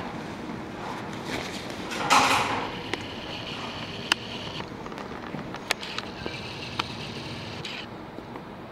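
Handling noise from objects being worked with on top of an aluminium stepladder: a loud rustle about two seconds in, then a few sharp clicks and several seconds of steady hissing scraping.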